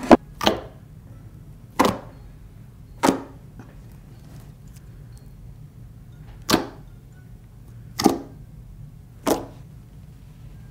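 Thick glossy slime, store-bought slime loosened with clear glue, being pressed, folded and stretched by hand, giving seven sharp wet pops and clicks. There is a pause of about three seconds between the fourth and the fifth.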